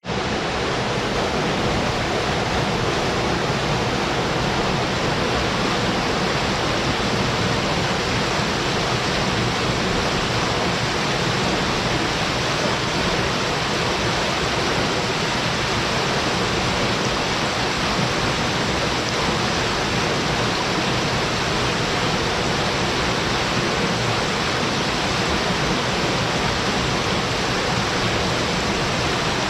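A low but forceful waterfall pouring into its plunge pool: a steady, even rush of falling water with no breaks.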